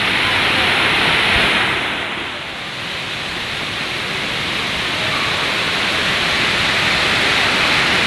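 Waterfall rushing: a steady hiss of falling water, dipping briefly about two seconds in.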